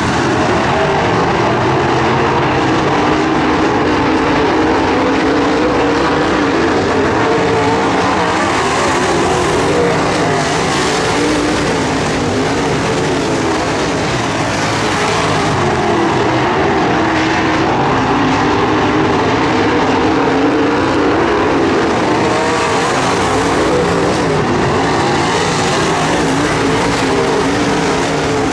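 Dirt modified race cars' V8 engines running hard around a dirt oval, their pitch rising and falling as the cars go through the turns and down the straights.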